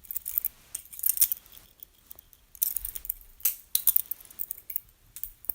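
Balisong (butterfly knife) flipped through a closed double rollout: its metal handles and blade clicking and clacking against each other in quick, irregular strikes.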